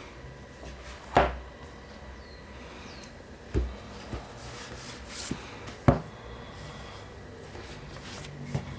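Hands handling paperback manga volumes and their packaging: light rustling with about five sharp knocks as items are set down or bumped on a hard surface, the loudest near the middle.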